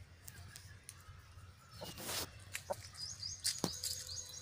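A small bird chirping: a rapid run of short, high chirps, several a second, starting about three seconds in. Before it comes a brief rustle and a few sharp clicks.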